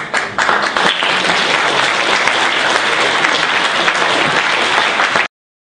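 Audience applauding steadily, cut off abruptly about five seconds in.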